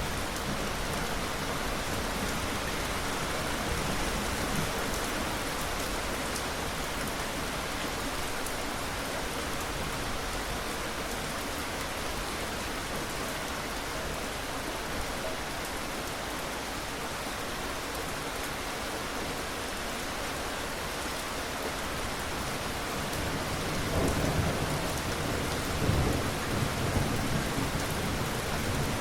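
Steady rain pouring, with low thunder rolling twice near the end.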